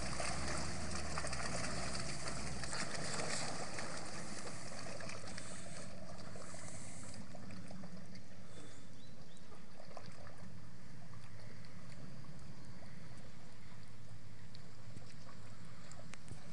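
Volvo Bv202 tracked amphibious vehicle driving through flood water, its engine running and water sloshing around the tracks; a low steady hum drops away about three seconds in as it pulls away.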